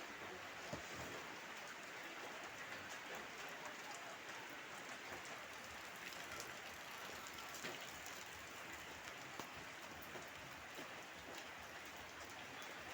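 Heavy rain falling steadily, a continuous hiss with scattered sharp ticks of individual drops.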